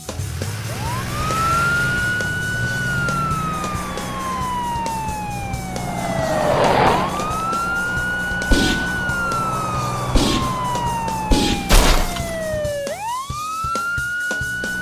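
Wailing siren sound effect. Each cycle rises quickly, holds briefly, then falls slowly, repeating three times. Several sharp knocks come in the second half, over a low steady background.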